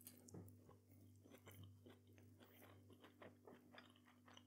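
Faint close-up mouth sounds of a man biting into and chewing a plant-based burger in a soft bun: soft irregular clicks, several a second, over a steady low hum.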